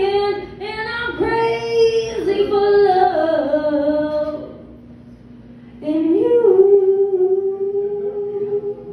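A woman singing a cappella into an amplified microphone: a run of phrases ending in a falling line, a short pause about halfway, then one long held note near the end that closes the song.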